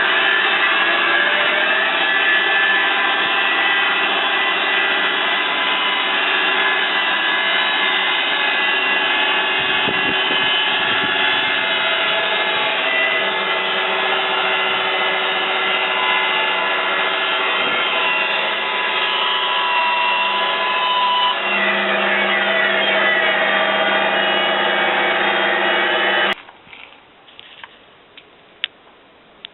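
R-60 band sawmill running, its 5.5 kW electric motor driving the band blade through a log with a steady whine of several tones. The tones shift about three-quarters of the way through, and the sound cuts off abruptly near the end, leaving quiet with a few light ticks.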